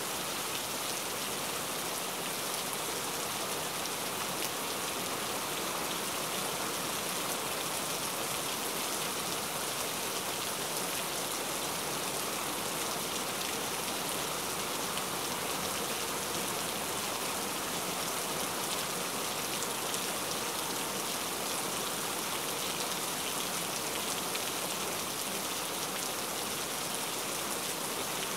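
Steady rain, an even hiss of drops falling on a surface without breaks or changes.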